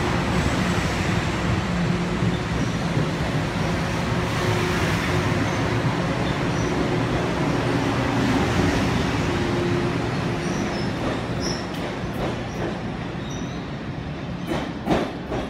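Long Island Rail Road Bombardier M7 electric multiple-unit train running out along the platform, a steady rumble with a low hum that fades slowly as the last car moves away. A couple of sharp knocks come near the end.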